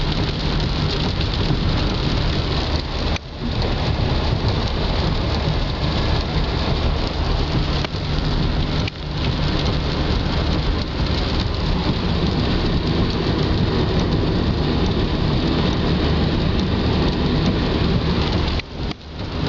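Heavy rain beating on a moving car, heard from inside the cabin, mixed with the hiss of tyres on the flooded road; a steady loud noise that drops out briefly about 3 s in, about 9 s in and again near the end.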